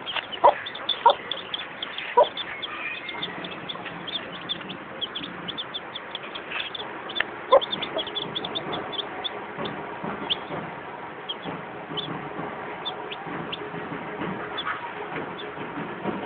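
A brood of young chicks peeping in short, high cheeps, many in quick succession, with a mother hen among them. A few louder, lower clucks come near the start and about seven and a half seconds in.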